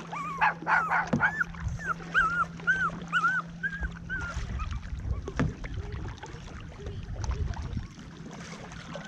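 Dog whimpering in a quick run of short, high whines, about three a second, over the first half. Then low rumbling and a single knock take over.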